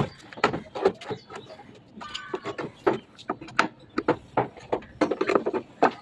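A rapid, irregular series of knocks and taps, with a brief high pitched sound about two seconds in.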